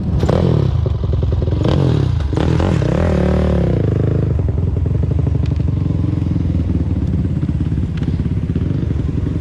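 Race ATV engine running with a few quick throttle revs that rise and fall in the first four seconds, then settling to a steady idle.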